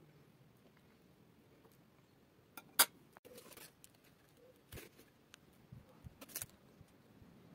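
Quiet handling noises as a plastic piping bag is picked up and readied: one sharp click just under three seconds in, a short rustle straight after, then a few lighter clicks later on.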